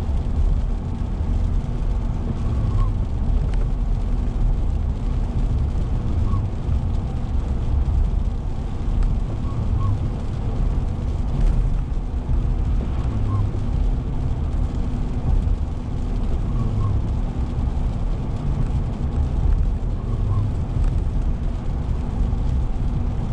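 Steady low rumble of road and engine noise inside a moving car's cabin, at a constant cruising speed. A faint short chirp repeats about every three and a half seconds.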